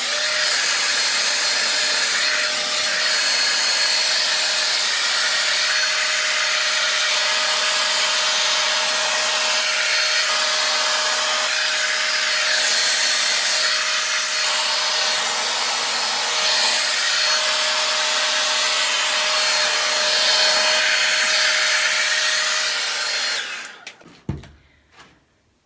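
Handheld hair dryer blowing steadily, a constant rushing with a faint whine, drying the glue under the frontal wig's lace. It switches off about 23 seconds in.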